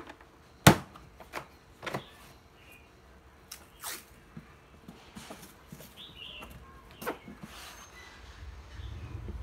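A hard plastic tool carry case is shut, with one sharp snap about a second in. A few lighter clicks and knocks of handling the case follow, along with short rasps of masking tape being pulled off its roll and pressed onto the lid.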